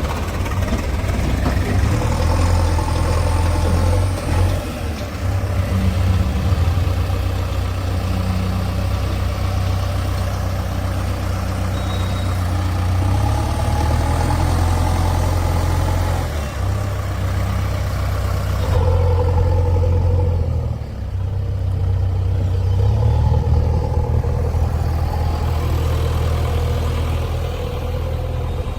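Heavy diesel engine running steadily with a deep drone, its note and load shifting a few times as the machine works.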